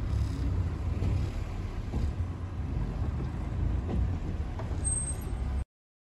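Open-top Maruti Gypsy safari jeep driving on a rough dirt forest track: a steady low engine and road rumble with a few faint knocks and rattles from the body. The sound stops abruptly near the end.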